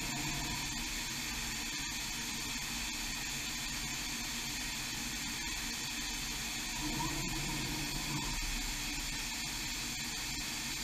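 Steady whir and hiss of a Huron KX30 five-axis machining centre's drives and fans while its tilting trunnion table moves slowly during a pivot-point setting cycle, with a couple of faint clicks.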